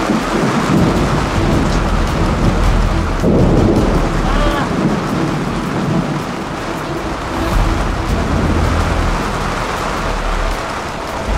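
Rain pouring down in a thunderstorm at sea, a dense steady hiss, with low rumbles of thunder swelling and easing underneath.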